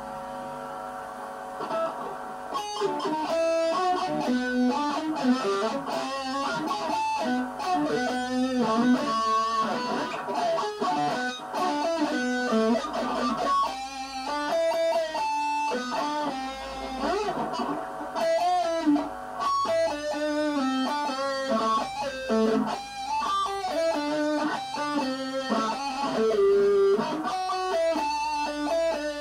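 Electric guitar played through an amplifier: a chord left ringing for the first couple of seconds, then a quick single-note lead line with the notes changing several times a second.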